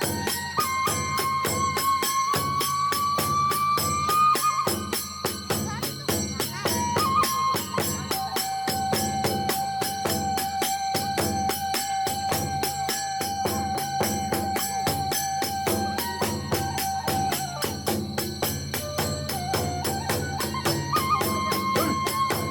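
Kagura hayashi ensemble playing: a bamboo flute holding long notes that step up and down in pitch, over a fast, even stream of drum and hand-cymbal beats.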